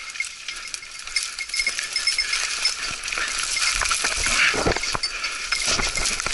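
Dry brush and branches scraping and rustling against the hunter and his camera as he pushes through thick scrub, the scraping growing denser after about three seconds. Under it a small bell jingles in a quick, even rhythm. Two duller knocks come near the end.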